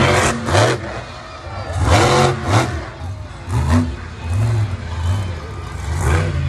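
Monster truck engine revving in repeated bursts, its pitch rising and falling with each rev.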